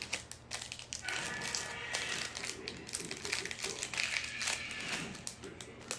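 Plastic packaging crinkling and crackling in irregular bursts as it is handled.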